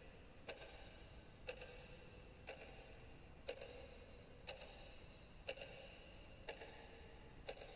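Faint, regular ticking, about one tick a second, over a low hiss.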